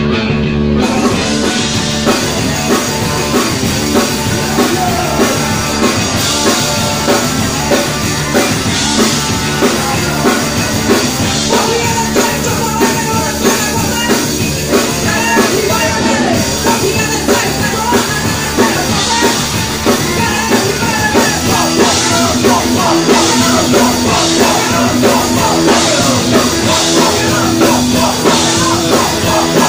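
Rock band playing live, a drum kit keeping a steady beat under the rest of the band.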